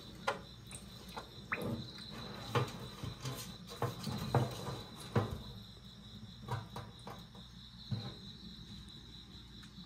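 Box turtles moving about in a stainless steel sink: their claws and shells give irregular sharp taps and scrapes on the metal, busier in the first half. A faint steady high-pitched tone runs underneath.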